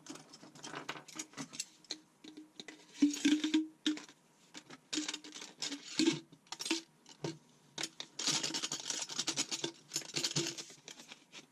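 Small metal hand tools, a set of Allen wrenches, clinking and rattling as they are handled and put together, in two longer bursts of jangling.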